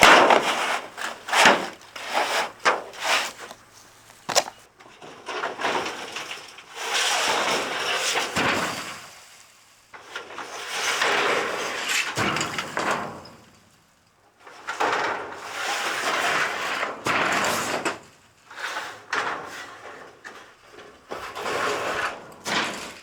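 Porch roof panels being worked loose and slid off the frame: a run of knocks and rattles for the first few seconds, then four long scraping drags of two to three seconds each as panels slide across one another.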